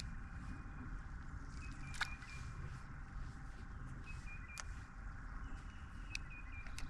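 Quiet open-air ambience on the water: a steady low rumble with a few faint, short high tones, broken by two sharp clicks about two seconds and four and a half seconds in.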